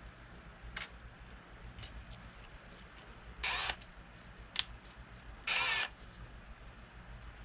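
Power drill run in two short bursts, each under half a second and about two seconds apart, with small handling clicks between them, as when a drill bit is being set in the chuck.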